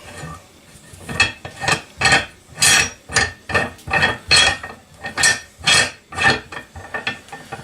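Slide hammer being screwed by hand into a drilled and tapped plug in an outboard lower unit housing: rhythmic metal clinking and scraping with each turn, about two strokes a second.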